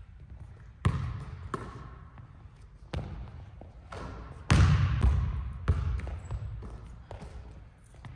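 Basketball bouncing on a hardwood gym floor, single sharp hits a second or so apart, each echoing in the large hall. About four and a half seconds in comes the loudest, longest-ringing hit as a shot reaches the rim, followed by more bounces.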